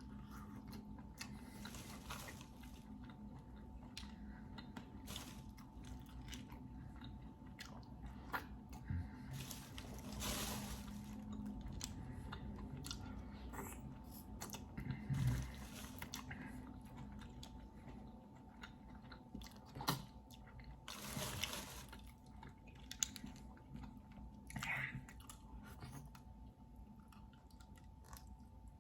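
Close-miked eating sounds: a person biting and chewing seafood-boil clams, with scattered short clicks and wet bursts, over a faint steady hum.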